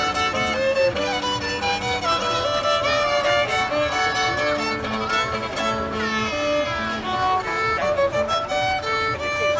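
Violin played with a bow: a solo melody of held and moving notes.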